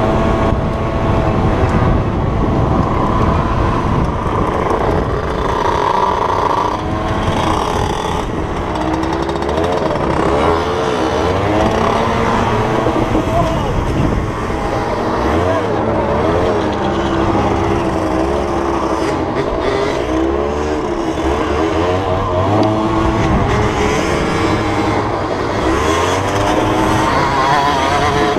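A 50cc two-stroke dirt bike engine running under way, its pitch rising and falling over and over as the throttle opens and closes, with a steady rumble of wind on the microphone.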